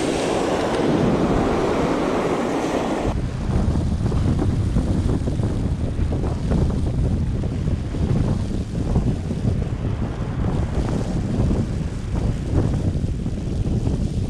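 Surf washing in over rocks at the water's edge for about three seconds, then an abrupt change to wind buffeting the microphone: a low, gusting rumble.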